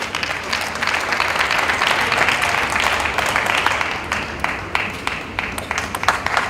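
Spectators in a table tennis hall applauding between points. The applause swells about a second in and thins out after about four seconds, with sharp individual claps standing out.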